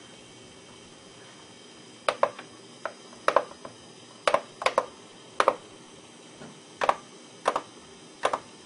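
Front-panel buttons of a Roland XP-80 synthesizer being pressed: a string of about a dozen short, sharp clicks, some in quick pairs, starting about two seconds in, over a faint steady hiss.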